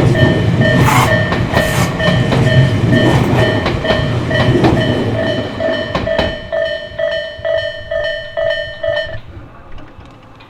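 Japanese level-crossing alarm bell ringing, a repeating ding about twice a second, while a train passes over the crossing with its wheels clicking over the rail joints. The train's rumble dies away about six seconds in, and the bell stops about nine seconds in.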